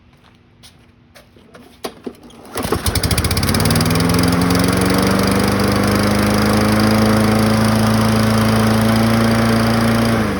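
A Toro self-propelled lawn mower's Kohler XT675 single-cylinder engine is pull-started: a few clicks and knocks, then it catches about two and a half seconds in, revs up and runs steadily at speed. Right at the end it shuts off and winds down. It starts on its newly replaced recoil starter after its carburetor and fuel tank were cleaned.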